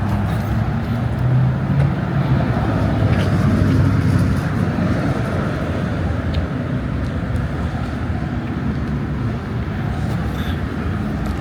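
Steady road traffic noise, with a low rumble of cars running by that swells a little in the first few seconds.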